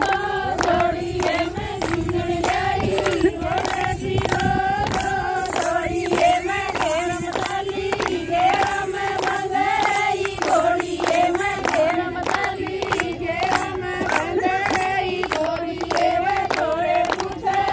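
A group of women singing a folk song together, with steady rhythmic hand-clapping keeping the beat.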